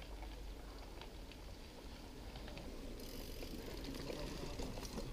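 Mountain bike on the move: a steady low rumble of wind on the microphone with scattered light clicks and rattles from the bike, getting a little louder and hissier about three seconds in.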